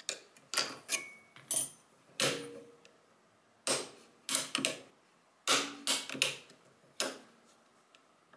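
Sharp metallic clicks from a Stgw. 57 trigger group worked by hand: the trigger and sear mechanism being tested for its break point after the trigger spring nut was adjusted. About a dozen clicks come in uneven clusters, a few with a brief metallic ring.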